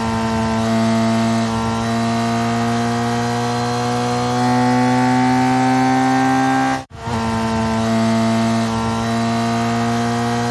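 Motorbike engine sound, a steady buzzing drone that slowly rises in pitch as if revving, cut off briefly about seven seconds in and then starting again.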